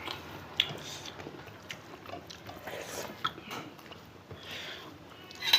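Close-up eating sounds: chewing and biting, with scattered small clicks and smacks through the whole stretch and a sharper click near the end.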